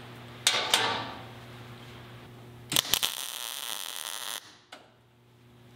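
Two sharp metallic knocks on a steel cabinet, each ringing briefly. Then a welding arc hisses for under two seconds as a hinge is tack-welded to the steel door, stopping abruptly, with one more click after. A steady low hum runs underneath.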